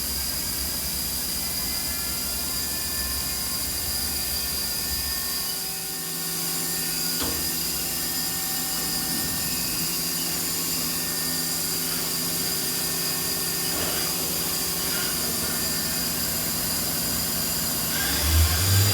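Haas SL-40TLB CNC lathe running under power, with a steady whine and hum. The hum changes about six seconds in and again near the end, and a few clicks fall in between.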